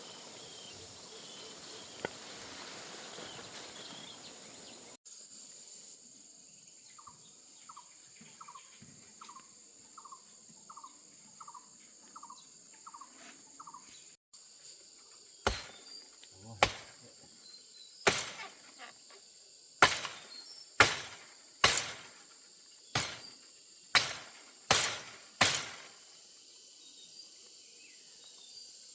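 Insects keep up a steady high drone. A bird gives a quick series of about ten short, falling chirps. Then come about eleven loud, sharp strikes, roughly one a second, each dying away briefly.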